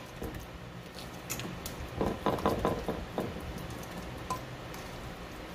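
Ricotta cheese dropped and pressed onto lasagna noodles in a glass baking dish: soft wet squishes in a cluster about two to three seconds in, with a few light clicks and one ringing clink from the stainless steel bowl near the end.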